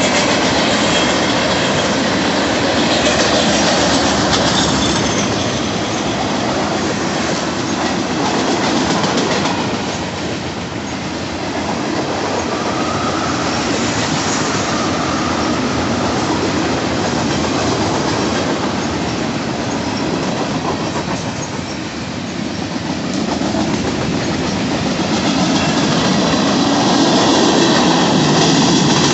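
Freight cars of a Union Pacific train rolling past close by: a steady rumble and clatter of steel wheels on the rails, with thin wheel squeal coming and going at times.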